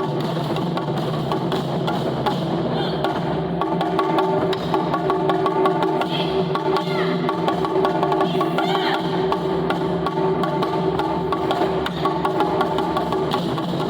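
Japanese taiko drums played in a fast, dense rhythm of sharp strikes that goes on without a break.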